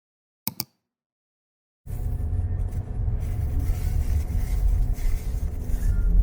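Two short clicks, then a steady low rumble of a vehicle on the move, starting about two seconds in.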